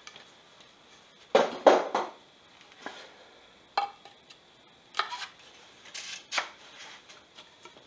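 Carbon fiber ferrule being handled on the turned end of a cedar paddle core, giving a handful of short scrapes and knocks. The loudest come about a second and a half in, with smaller ones spread through the rest.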